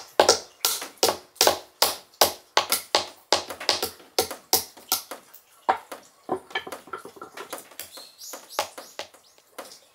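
Small hammers knocking on nut shells to crack them, a rapid irregular run of sharp taps, about three a second, which grow sparser and fainter in the second half.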